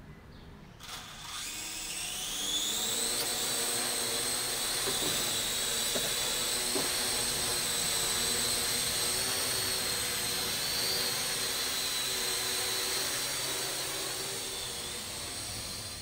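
Parrot AR.Drone 2.0 quadcopter's four electric motors and propellers starting up about a second in, a whine rising in pitch, then holding a steady high-pitched whine as the drone flies.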